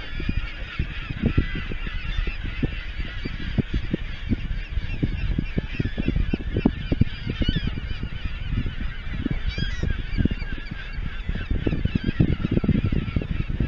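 A dense chorus of many waterbirds calling together from a crowded island colony, short overlapping calls without a break, over an uneven low rumble of wind buffeting the microphone.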